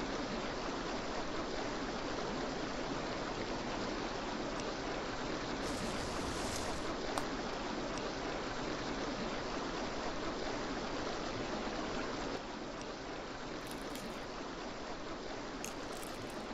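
Steady rushing of a flowing river or stream, used as background ambience, with a brief brighter hiss about six seconds in.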